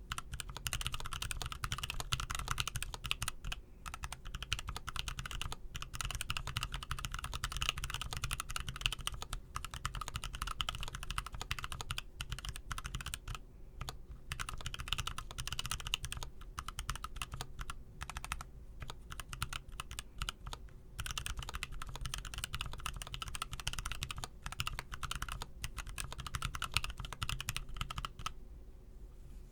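Continuous fast typing on a Niu Mini 40% mechanical keyboard with T1 Skies tactile switches (Outemu Sky tops in T1 housings, stems and springs, lubed with Krytox GPL 204). There are a few brief pauses, and the typing stops about a second before the end, leaving a low steady background hum.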